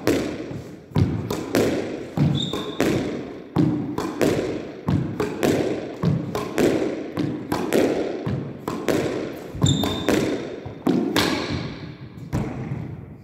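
Squash ball in a steady solo backhand rally: racket strikes, the ball hitting the front wall and bouncing on the wooden floor, about two to three impacts a second, each ringing in the court's echo. A couple of brief high squeaks.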